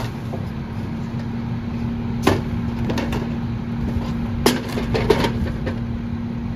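Mack LEU garbage truck's engine idling with a steady hum, while trash thrown into the McNeilus rear loader's steel hopper lands with several sharp knocks and thuds, the loudest about two and four and a half seconds in.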